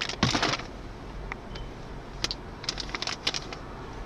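Handling noise: a short rustle about a quarter of a second in, then scattered small clicks and crackles.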